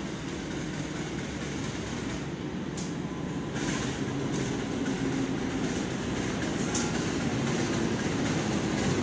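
CC 203 diesel-electric locomotive drawing a passenger train into the station. Its engine and the running gear grow steadily louder as it approaches, with a few sharp clicks from the wheels and a thin high squeal through the middle.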